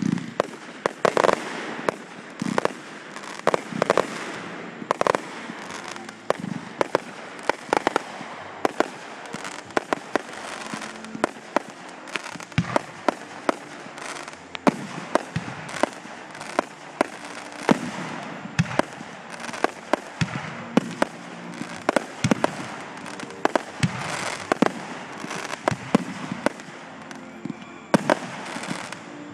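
Fireworks going off: a steady run of sharp bangs and pops, a few a second at uneven spacing, over continuous crackling.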